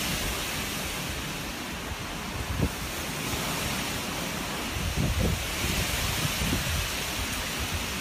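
Strong wind rushing through forest trees in a steady roar, with gusts buffeting the microphone in low thumps, most plainly about two and a half and five seconds in.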